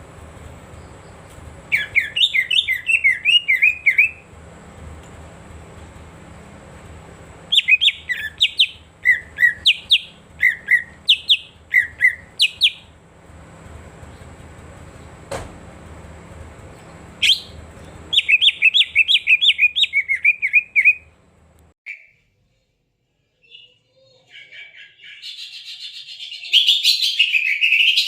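Cucak ijo (green leafbird) singing in bursts of rapid, high, gliding chirps, separated by short pauses, with a busier, louder chattering phrase near the end. A low hum and a thin steady high whine sit underneath until a little past the middle.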